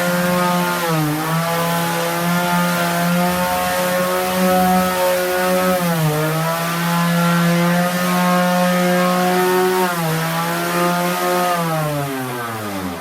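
Electric power sander running with a steady motor whine, its pitch dipping briefly three times, then slowing down and stopping at the very end.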